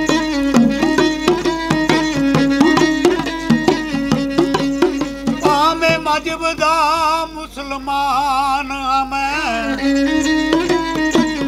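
Punjabi folk singing: a man's voice over a bowed sarangi drone with quick hand-drum strokes. From about halfway, a wavering, heavily ornamented sung passage comes to the fore.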